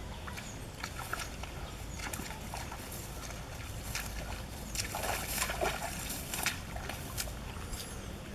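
Muddy water sloshing and splashing in short, irregular bursts as hands work through it, busiest from about four to six and a half seconds in.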